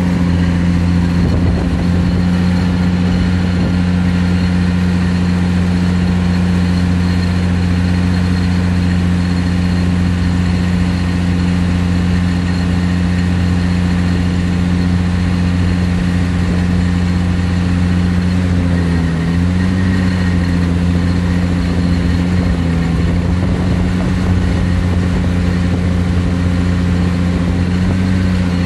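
Caterpillar excavator's diesel engine and hydraulics running hard to power a vibro hammer that is driving a steel plate pile into sand: a loud, steady deep hum. The pitch wavers briefly a little past the middle.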